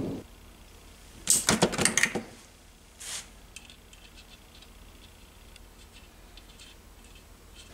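Small metal parts clinking and rattling by hand while gears and a nut go onto the moped engine's gearbox shafts: a thump at the start, a loud burst of rapid clicks about a second in, a shorter clink near three seconds, then faint scattered ticks.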